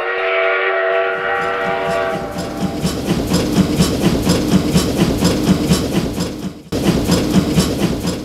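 A train horn sounds a chord for about two seconds, then a passing train's wheels clack over the rail joints in a steady rhythm. The sound briefly drops out about two-thirds of the way through.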